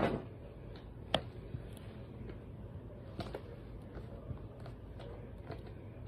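A sharp click about a second in, then a few fainter clicks and taps, like toys or buttons being handled, over a low steady background hum.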